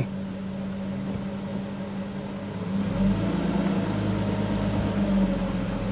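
A vehicle engine running with a steady low hum, growing louder with a slight rise in pitch about three seconds in.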